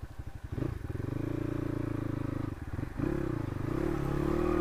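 Crossfire RM250 dirt bike's single-cylinder engine idling with an even putter, then opened up about half a second in and held on the throttle. It eases off briefly near three seconds and pulls again as the bike is ridden slowly through a shallow water crossing.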